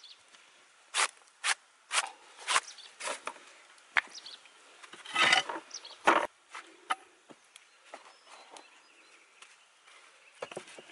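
Sharp clicks and knocks of broken terracotta roof tile and brick pieces being handled and set against each other, about seven in the first four seconds, a rattling scrape about five seconds in, and the loudest knock just after six seconds.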